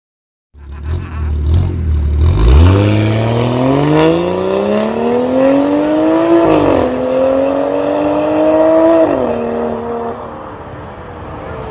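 BMW X3 accelerating hard away through an aftermarket valved (valvetronic) stainless full exhaust system. A low rumble turns into a rising engine note that dips at a gear change about six and a half seconds in, climbs again, dips at a second shift about nine seconds in, then fades as the car pulls away.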